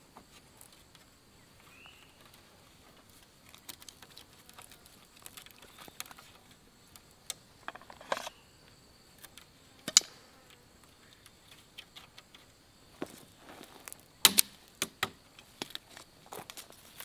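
Scattered clicks, snaps and rustles of thin split-bamboo strips being handled and tied onto a bamboo shelter frame, with a few sharp cracks, the loudest about ten and fourteen seconds in. A faint steady high insect drone runs underneath.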